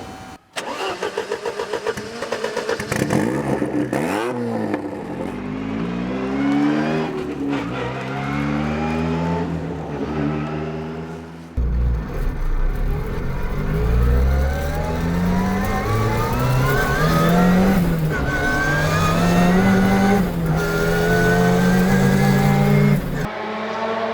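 1987 Ford Sierra RS Cosworth Group A race car's turbocharged four-cylinder engine accelerating hard through the gears: repeated rising revs, each falling back sharply at the gear change. The sound jumps abruptly about half a second in and again about halfway through.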